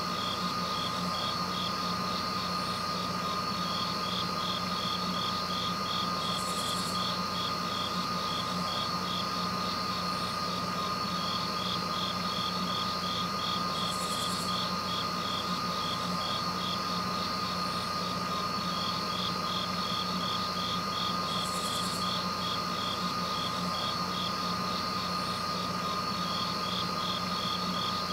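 Insects chirping in a fast, even pulse, over a steady low hum and a thin steady high tone, with a short higher hiss about every seven seconds.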